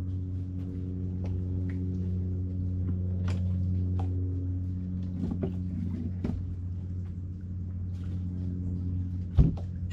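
Clicks and knocks of someone rummaging in a boat's deck hatch for a beer, with a louder thump near the end, over a steady low hum.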